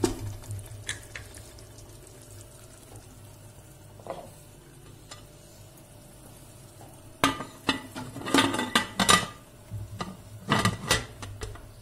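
Metal pressure-cooker lid clattering and knocking as it is fitted onto the pot and closed. A quick run of sharp metal knocks comes in the last few seconds, after a brief spoon scrape at the start and a quiet stretch.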